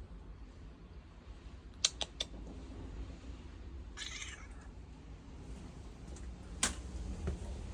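A cat meowing once, briefly, about four seconds in, over a low rumble, with a few sharp clicks around two seconds in and one more near the end.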